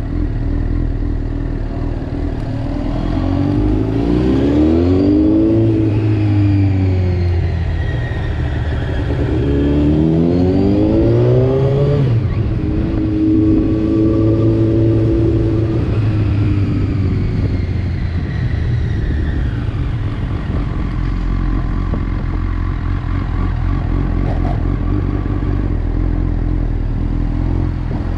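Honda CBR Fireblade's inline-four engine under way, revs climbing and dropping back twice in the first twelve seconds, then running steadily at lower revs and climbing again near the end.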